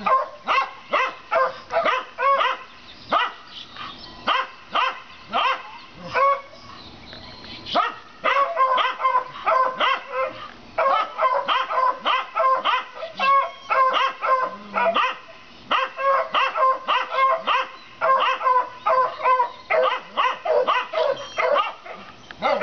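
Two dogs barking rapidly and without letup at a rabbit, excited prey-directed barking with short, fairly high-pitched barks a few each second. The barking thins out and softens about four seconds in, then picks up hard again about eight seconds in.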